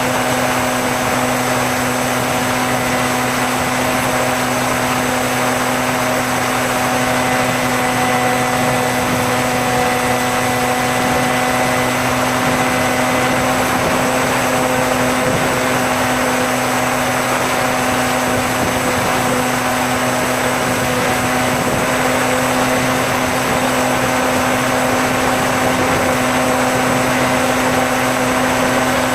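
Bixler RC plane's electric motor and propeller running at a steady throttle in flight: a constant, unchanging hum and whine over an even rush of wind noise.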